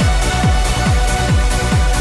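Electronic dance music: a steady four-on-the-floor kick drum a little over two beats a second, with off-beat hi-hats and a held synth line.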